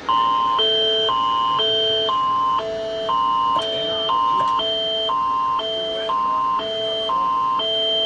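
Canadian Alerting Attention Signal of the Alert Ready emergency alert system: two high tone chords alternating every half second for about eight seconds. It announces an emergency alert broadcast, here a scheduled test.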